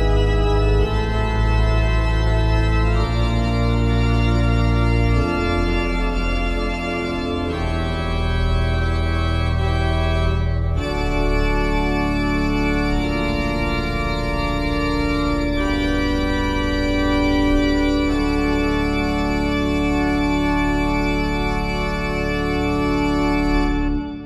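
1913 Heinrich Schiffner pipe organ playing a slow improvisation in D minor: sustained full chords over a deep pedal bass, changing every few seconds, with one middle note held through the second half. The music stops just before the end and dies away.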